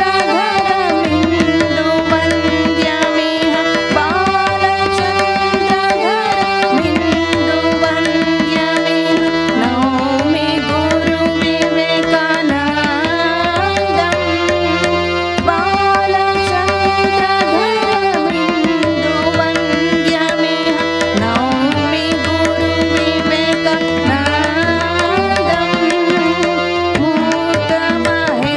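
Harmonium playing a bhajan melody with tabla accompaniment, the tabla's low bass drum pulsing under the sustained reed tones.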